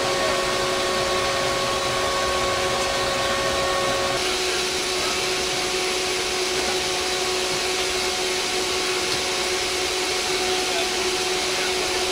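Lockheed C-130J Hercules' four Rolls-Royce AE 2100 turboprop engines and six-bladed propellers running with a loud, steady drone and hum. The hum tones shift abruptly about four seconds in.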